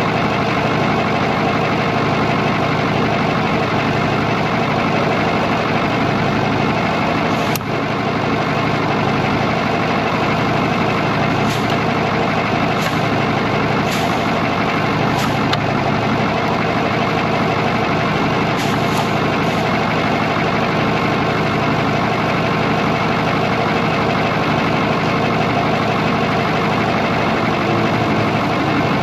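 Cummins diesel engine of an antique Brockway truck idling steadily. A sharp click comes about seven and a half seconds in, and several short hisses of air follow between about 11 and 20 seconds in.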